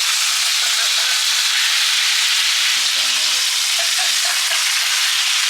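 Food frying in a hot pan, a steady sizzling hiss.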